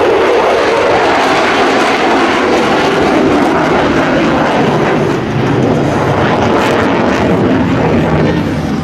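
Single-engine F-16 Fighting Falcon jet, its turbofan running loud and steady as it flies its display.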